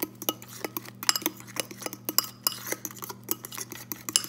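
Metal fork stirring thick waffle batter in a ceramic bowl, the tines clinking against the bowl in quick, irregular clicks.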